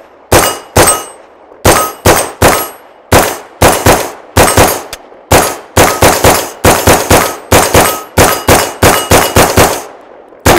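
CMMG Banshee AR pistol in 4.6x30mm firing unsuppressed: about two dozen semi-automatic shots at a quick, uneven pace. Steel targets ring after many of the hits. The last shot comes near the end, after a short pause.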